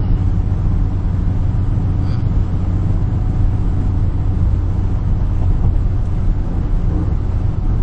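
Steady low drone of engine and road noise heard inside a car's cabin while it drives at highway speed.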